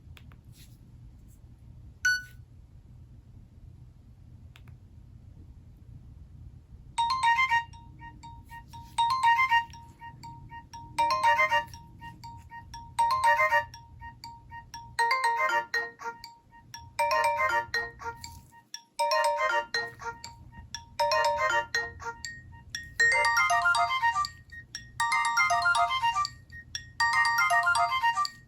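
Nokia N71 ringtone playing through the phone's loudspeaker: a short electronic melodic phrase about a second long, repeating roughly every two seconds from about seven seconds in. It grows fuller and more continuous in the last few seconds. A single click sounds about two seconds in.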